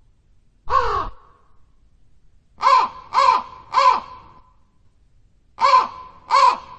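A crow cawing: six harsh, falling caws, one on its own, then a quick run of three, then a pair.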